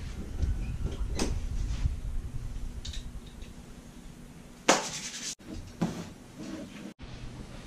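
Rustling and handling noises from someone moving about and picking up a phone from a bedspread, with a few light clicks and one sharp, loud clatter a little past halfway. The sound drops out abruptly twice near the end.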